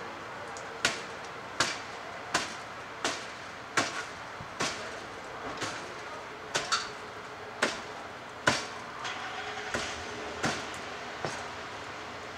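A firefighter's hand tool striking and chopping into charred deck wood: about a dozen sharp blows at an uneven pace of roughly one a second. This is overhaul work, opening up the burned deck to make sure the fire is out.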